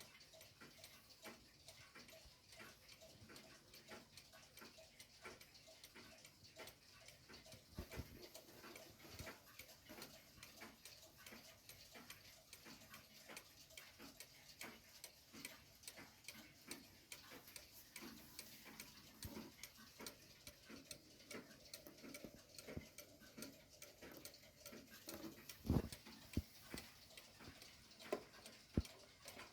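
Faint, steady ticking of a 1980s Hubert Herr mechanical cuckoo clock, with a few louder knocks near the end.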